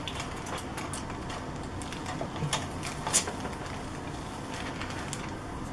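Clear plastic bag crinkling and rustling as white plastic model-kit sprues are slid out of it, with a few sharp plastic clicks, the sharpest about three seconds in, over a steady background hum.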